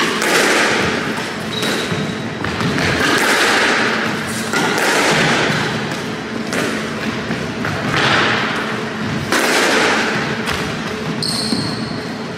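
Squash ball struck by a racket and hitting the walls of a squash court, a sharp crack roughly every one to two seconds, each hit ringing out in the hard-walled court. A short high squeak comes near the end.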